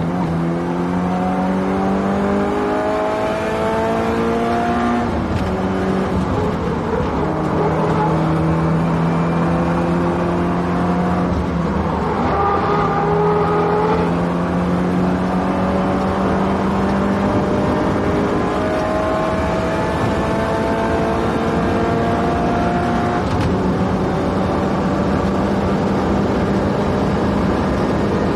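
Subaru Impreza WRX STI's turbocharged flat-four engine at full throttle, its pitch climbing steadily and then dropping back at each gear change, several times over.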